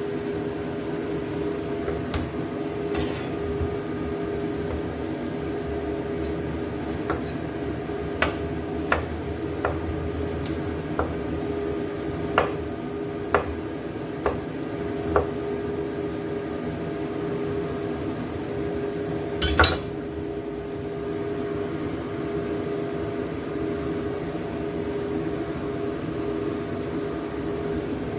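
Kitchen knife chopping gourd on a wooden cutting board: a run of sharp knocks about once a second through the middle, then one louder knock, over a steady background hum.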